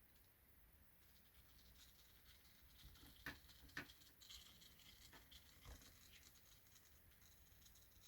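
Near silence, with a few faint short clicks and taps, the clearest two a little over three seconds in, about half a second apart.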